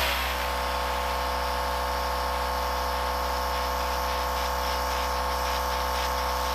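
Airbrush hissing steadily as it sprays the body colour onto a plastic model, over the steady hum of the air compressor feeding it.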